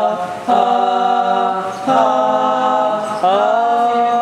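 A small group of male voices singing a cappella in harmony, nasyid-style, holding long chords and moving to a new one about every one and a half seconds.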